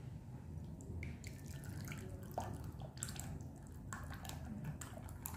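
Thick red sauce being spooned into a glass bowl: faint wet dripping and plopping, with a few light clicks scattered through.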